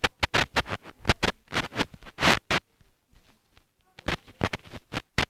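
A drawing tool scratching on paper in quick, irregular strokes, a dense run of them, a pause of over a second, then another short run near the end.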